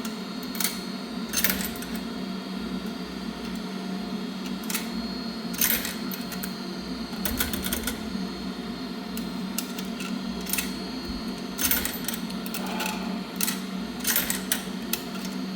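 Steady low machine hum with a dozen or so scattered sharp metallic clicks and clacks at irregular intervals. The clicks come from working the coin slot and controls of a coin-operated dryer that isn't taking quarters.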